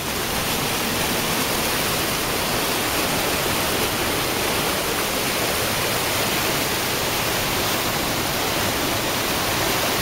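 Steady rush of flowing mountain water, an even, unbroken hiss.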